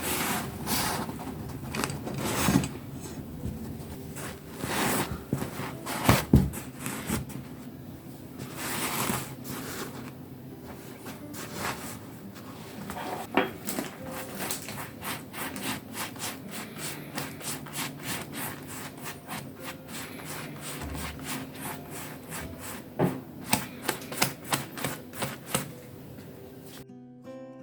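Rubbing and scraping on a hard surface, with irregular swells at first and then a long run of short quick ticks.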